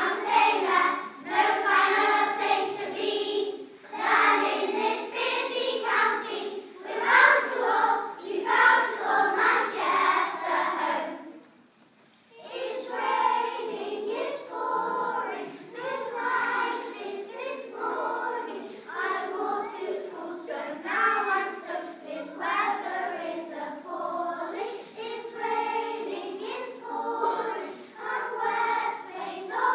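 A class of primary-school children singing together as a choir, with a short pause about twelve seconds in before the singing starts again, a little quieter.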